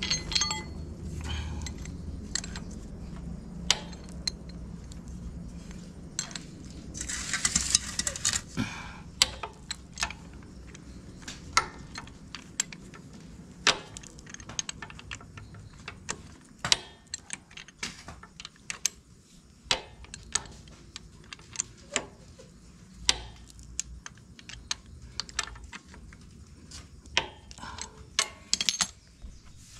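Box spanner clinking against a motorcycle's engine-oil drain plug as the plug is tightened back in: irregular sharp metallic clicks and taps, with a short scraping rustle about seven seconds in.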